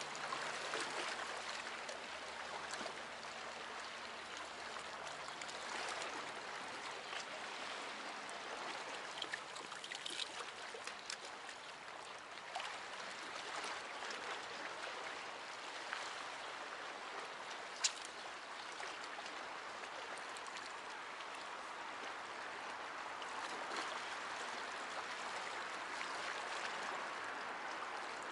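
Small sea waves washing and lapping against shore rocks: a steady splashing hiss with scattered small clicks, and one sharp click about eighteen seconds in.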